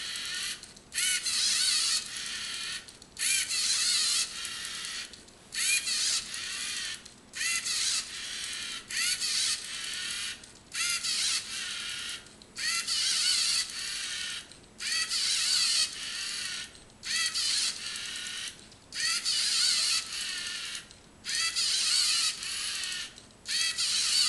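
LEGO Mindstorms NXT servo motors whining through their gears in stop-start bursts, about one every two seconds. Each burst is the tracked robot driving or making a small incremental turn away from the enclosure walls it detects.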